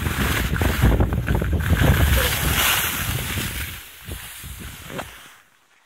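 Wind buffeting the microphone and skis hissing over packed snow during a downhill run, fading away after about three and a half seconds, with a short knock near the end.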